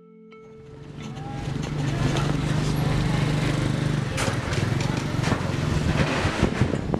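Street traffic ambience fading in over the first two seconds: a steady motor drone from vehicles, with scattered clicks and knocks.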